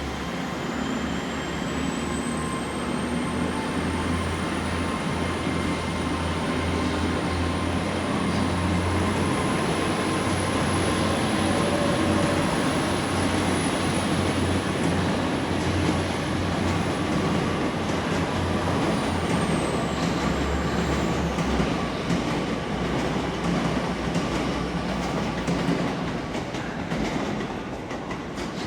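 A ten-coach Hitachi Class 800 bi-mode train pulling out under its underfloor diesel engines, with a steady low hum and a high whine that climbs over the first few seconds. The wheels click over the rail joints as it gathers speed. The whine drops away about two-thirds of the way through, and the engine hum fades soon after as the train moves off.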